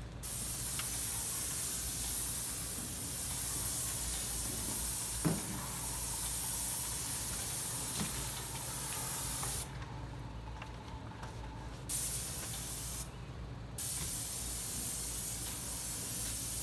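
Airless paint spray gun hissing as it sprays paint onto wood siding, in long passes that stop for about two seconds near ten seconds in and again briefly about a second later, over a low steady hum. A single light knock about five seconds in.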